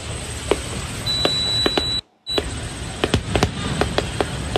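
Aerial fireworks going off: a string of sharp bangs over a steady low rumble. A steady high-pitched tone sounds for about a second, and the sound cuts out briefly about two seconds in.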